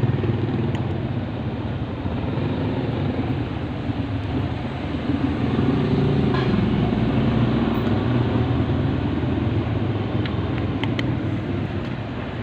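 A vehicle engine running steadily, a low hum with a few faint clicks near the end.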